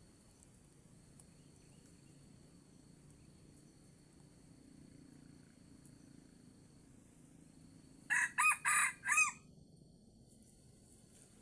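A red junglefowl crowing once, a short four-part crow lasting about a second, near the end. Before it, a faint steady high insect trill and hiss.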